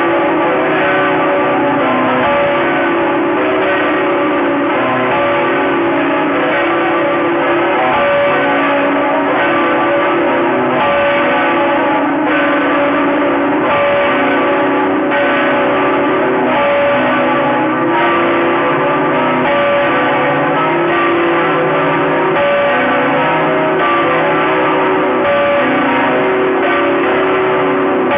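Church bells of Notre-Dame Cathedral, Saigon, pealing: several bells struck over and over, their tones overlapping in a steady, unbroken ring.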